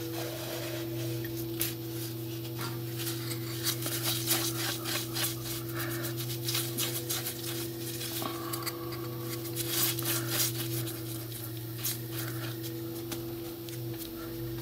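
A cloth rag rubbing and wiping a small clear perspex disc, taking the tape residue off, with scattered light clicks of handling. A steady low hum runs underneath.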